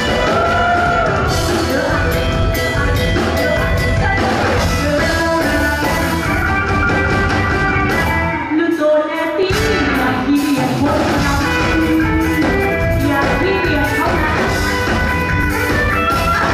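A band performing a song live, with a lead singer over drums, bass and guitar. About halfway through, the drums and bass drop out for about a second, then come back in.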